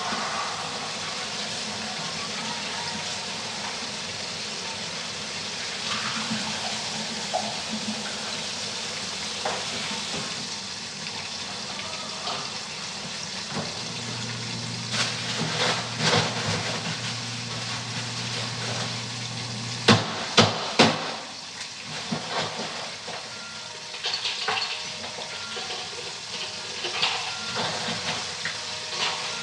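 Chicken frying in hot oil, a steady sizzle. Scattered small clicks and knocks, with three sharp knocks in quick succession about two-thirds of the way through, and a low hum for several seconds just before them.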